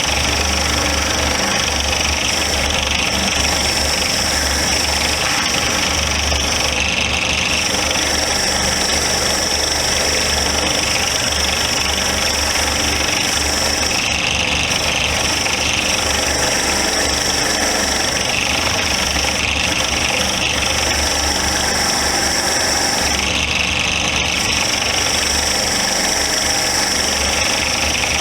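Motor-driven wire wheel running steadily, cleaning rust and old finish off a small cast vise part, with the sound brightening every few seconds as the part is pressed against the wheel.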